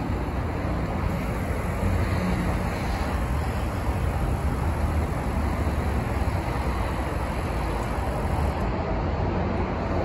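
Steady outdoor rumble and wind noise, with a faint high hiss from the 2023 Range Rover's rear air suspension adjusting ride height. The hiss stops about eight and a half seconds in.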